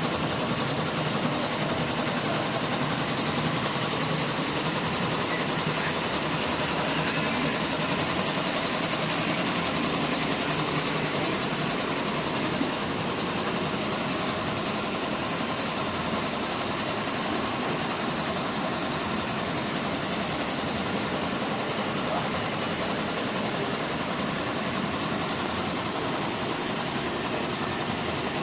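Tumbler printing machine running with a steady mechanical whir.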